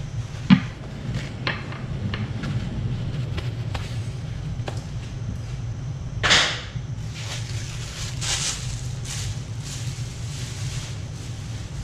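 Kitchen handling noises: a sharp click about half a second in and a few fainter clicks, then a short louder rustle or scrape about six seconds in, over a steady low hum.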